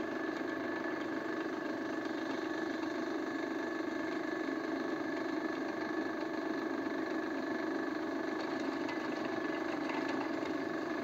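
Vertical drilling machine (pillar drill) running steadily with a constant motor and gear hum, while its spindle is lowered by the hand feed toward the workpiece.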